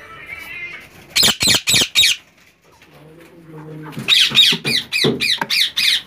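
Indian ringneck parakeets squawking. About a second in there is a burst of four loud, harsh screeches, then a pause, then a faster run of repeated screeches over the last two seconds.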